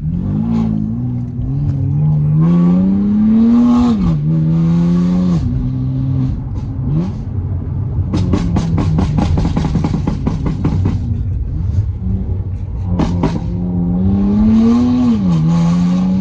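BMW M3 F80's twin-turbo inline-six with an equal-length exhaust and downpipes, accelerating hard: the revs climb and drop sharply at an upshift, twice. In between comes a rapid string of exhaust pops and crackles lasting a few seconds.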